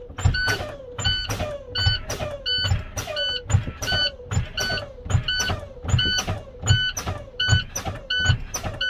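Truck air brakes being fanned: the service brake pedal is pumped a little more than once a second, and each stroke lets out a burst of air from the brake system. The low-air warning buzzer beeps over and over. This is the air pressure being drained to simulate a rapid air loss, to test that the spring brake valves pop.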